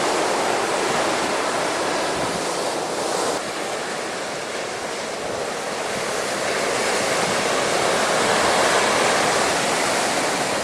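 Storm-driven waves of Chesapeake Bay surging and breaking against a sea wall, a continuous rush of surf. It eases a little about three and a half seconds in, then builds again to its loudest near the end.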